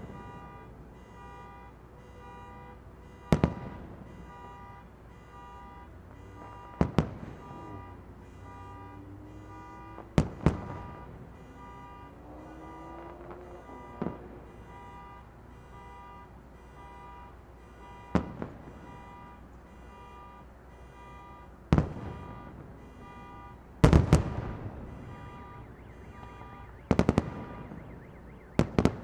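Aerial fireworks shells bursting in the distance, about nine sharp bangs a few seconds apart, the loudest and doubled about two-thirds of the way through. Under them runs a steady electronic beeping pattern, like an alarm.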